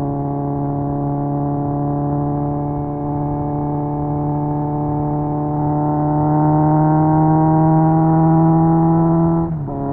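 Kawasaki Z900's 948 cc inline-four running through an SC Project exhaust under way. The engine note holds steady, then climbs slowly as the bike accelerates. Near the end the pitch drops suddenly at a gear change.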